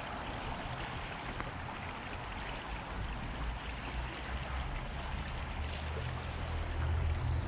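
Fast-running shallow stream, its water rushing steadily, with a low rumble building up near the end.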